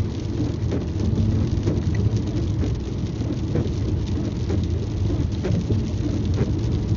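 Rain hitting the windshield and roof of a moving car, many scattered drop ticks over a steady low rumble of tyres on the wet road, heard from inside the cabin.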